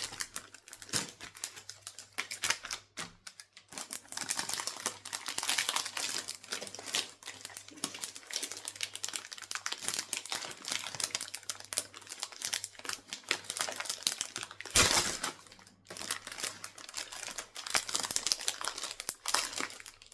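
Foil trading-card pack wrapper crinkling and crackling in the hands as it is worked and torn open, with rapid irregular clicks. One louder burst about three-quarters of the way through.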